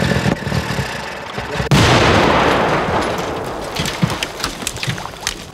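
Small car engine idling, then about two seconds in a sudden explosion as the Zaporozhets car blows up: a loud blast that fades into a long rush with scattered crackles. The characters put it down to petrol dripping onto the exhaust.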